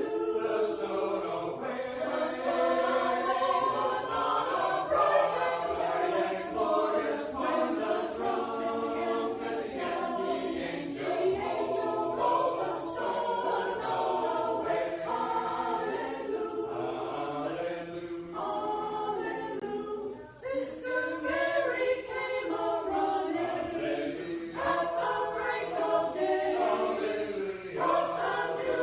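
Many voices singing together in parts, a hymn sung by a group, with a short break between phrases about twenty seconds in.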